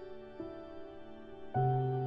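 Slow, gentle instrumental background music of held notes, with a new note about half a second in and a louder, deeper chord entering about a second and a half in.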